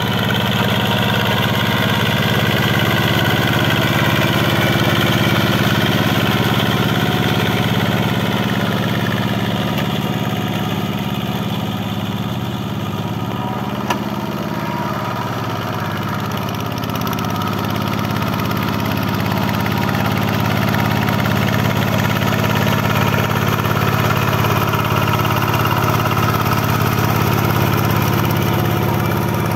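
Quick G1000 two-wheel hand tractor's single-cylinder diesel engine running steadily under load as it pulls a plough through flooded paddy mud, its pitch wavering slightly. A short click comes about halfway through.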